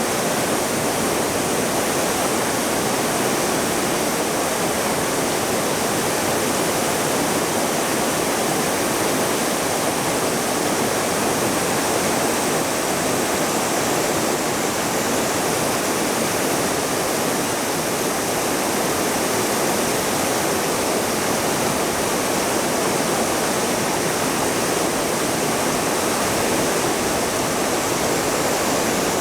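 A small waterfall and its rapids on a mountain river: a loud, steady rush of falling and churning water that does not change.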